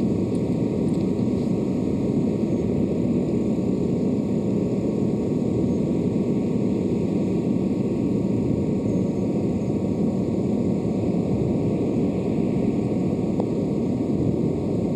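Steady outdoor background noise from a golf-course microphone: an even, low rush with no clear strikes standing out.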